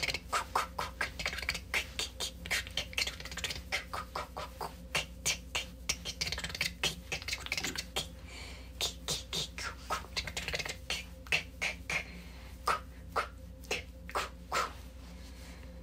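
A woman channelling light language as rapid tongue clicks and clucking mouth sounds, about three a second, with short breathy and hissing sounds among them, stopping near the end.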